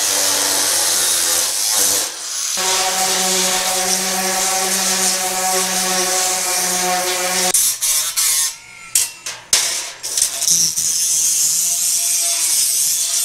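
Angle grinder with a cutoff wheel cutting 16-gauge sheet steel, alongside a small sander smoothing the cut metal. The tools run steadily with a break about two seconds in, hold a steady humming tone for several seconds, then go in short stop-start bursts before running steadily again.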